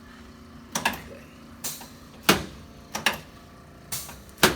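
A chiropractor adjusting a patient's low back: a series of about eight sharp clacks and knocks, some in quick pairs, at uneven intervals.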